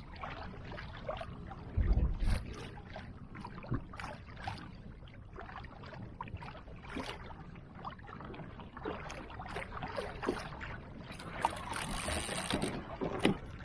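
Water lapping and splashing against a kayak's hull, with many small irregular knocks and clicks and one low thump about two seconds in.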